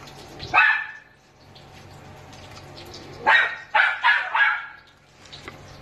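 A dog barking: one bark just after the start, then a quick run of several barks about three seconds in.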